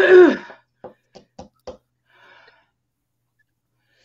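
A person's short, loud vocal exclamation that falls in pitch, a reaction to chilli heat, followed by four quick faint clicks and a soft breath.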